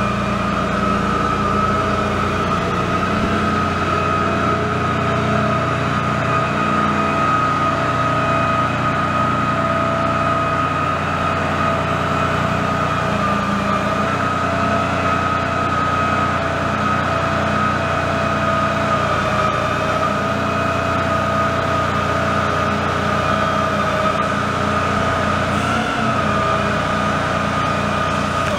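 The 2010 Dodge Ram 5500's 6.7-litre inline-six turbo diesel runs steadily, driving the PTO hydraulic pump for the Terex Hi-Ranger boom as the bucket is raised and swung. A steady high whine sits over the engine's low drone.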